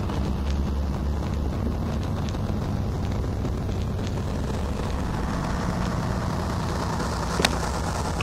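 Steady low drone of city traffic and engines, with a hiss that grows over the second half. Faint scattered clicks run through it, like the crackle of a record stylus, and one sharp click comes near the end.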